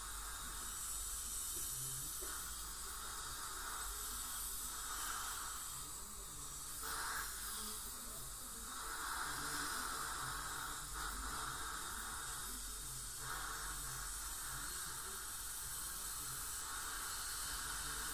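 Steady hiss of dental suction and an ultrasonic scaler's water spray during teeth scaling, swelling and easing several times as the tip moves around the teeth.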